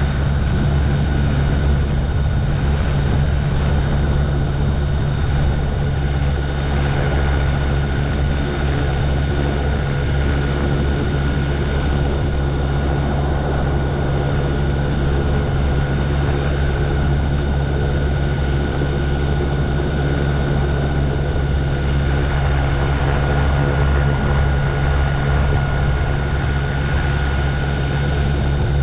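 MTOsport autogyro's engine and pusher propeller running at a steady, unchanging drone.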